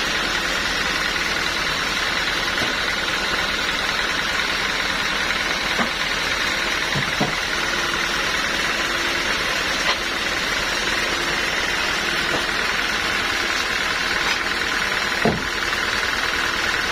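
An engine running steadily at idle, with a few light knocks now and then.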